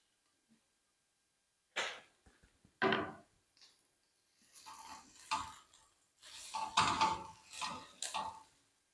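Spatula knocking and scraping against a coated frying pan while fried plantain pieces are tossed in tomato sauce. There are two sharp knocks about two and three seconds in, then a run of clattering scrapes near the end.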